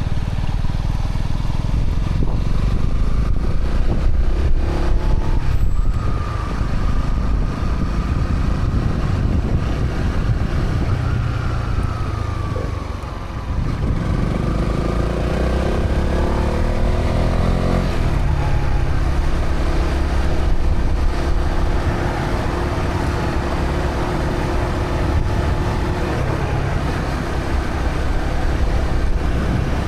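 Honda CB125R's single-cylinder 125cc engine running through its stock exhaust while riding. About halfway through it eases off, then pulls away with a rising pitch for a few seconds, and settles to a steadier run.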